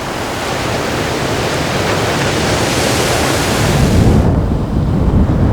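A loud rushing noise that swells, then loses its hiss abruptly a little over four seconds in, leaving a heavy low rumble.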